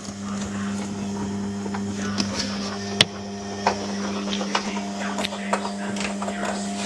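Washing machine running: a steady low hum with scattered clicks and rattles, one sharp click about three seconds in.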